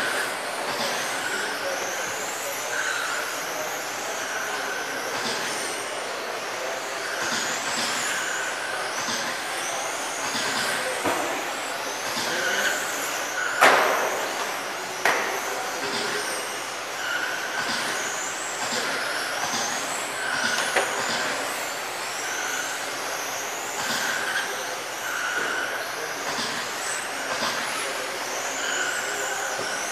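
Electric 1/10-scale RC racing sedans with 21.5-turn brushless motors running laps: high motor and drivetrain whines rise and fall as the cars accelerate and brake past. Short beeps at one pitch come at irregular intervals, and two sharp knocks come near the middle.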